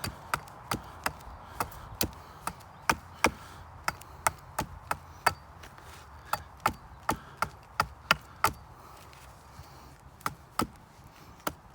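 Small Origin Knives Bushcrafter axe chipping at wood with the heel of its blade, in quick, light strikes about three a second. The strikes pause briefly a little after halfway, and for about two seconds near the end.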